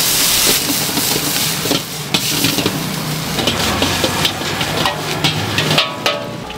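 A metal ladle and spatula clanking and scraping against a wok during stir-frying, over steady sizzling. A loud hiss opens the sound.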